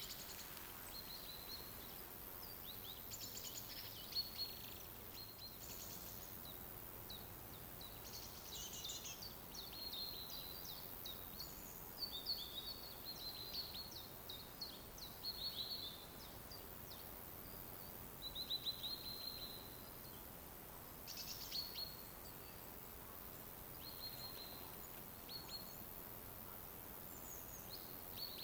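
Forest songbirds chirping and trilling in short, repeated phrases, several overlapping, over a faint steady hiss of forest ambience.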